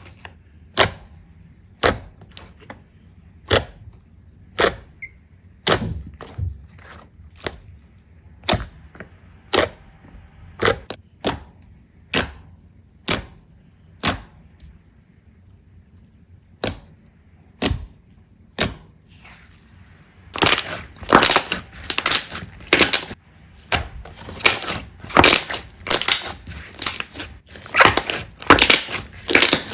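Slime being squeezed and pressed close to the microphone, giving sharp pops about once a second. From about two-thirds of the way through, these give way to a denser, louder run of crunching crackles.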